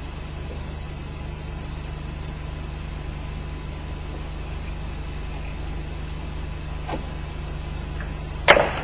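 Steady low hum with a faint hiss, the background noise of an old film soundtrack, with no work sounds; a short sharp noise comes near the end.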